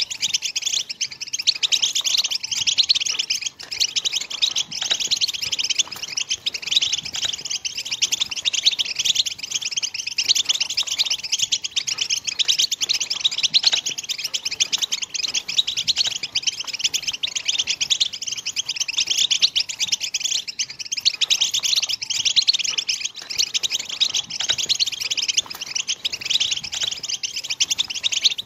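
European goldfinch (Moroccan goldfinch) song: a continuous, fast twittering chatter of high chirps and trills, the excited 'btbta' song that breeders play to stir goldfinches into singing and courtship.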